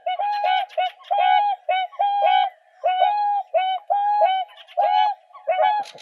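Whooper swans calling: a rapid series of short trumpeting honks, about two a second, with two birds' calls overlapping at times.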